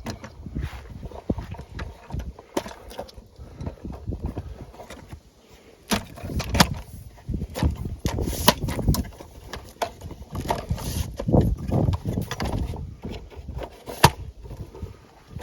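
Irregular knocking and clattering with scattered sharp clicks, the noise of parts and containers being handled during hands-on work.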